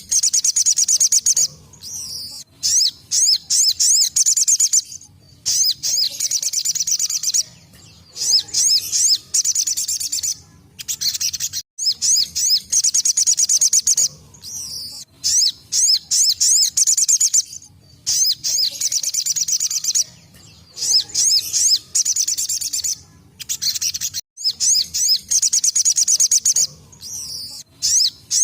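Crimson sunbird (sogok ontong) singing its rapid 'tembakan' song: repeated bursts of fast, high-pitched trilling, each one to two seconds long, separated by short pauses.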